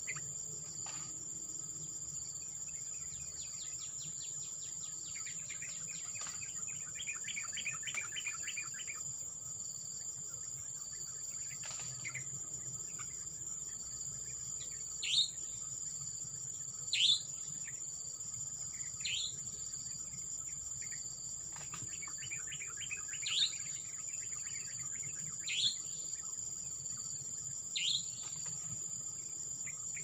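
Insects keep up a steady high-pitched drone with a pulsing chirp under it. Over it a bird gives a short, falling whistle about every two seconds in the second half, with two stretches of buzzy trilling.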